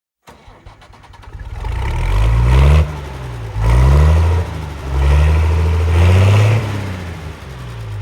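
Vehicle engine accelerating through the gears: its pitch climbs three times, dropping suddenly at each shift, then falls back as it eases off near the end.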